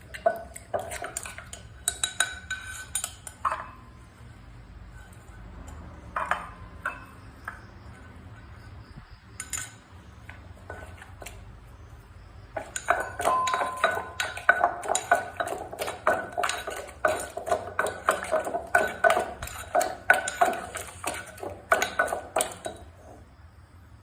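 Som tam being pounded and mixed in a mortar with a pestle and spoon: sharp ringing knocks and clinks. A few scattered strikes come first, then about halfway through a fast, steady run of pounding that stops shortly before the end.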